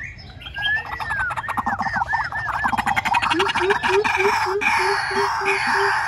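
White-breasted waterhens calling. A run of about six arching notes that rise and fall comes first, then from about halfway a harsh rasping chorus over a short low hoot repeated about four times a second.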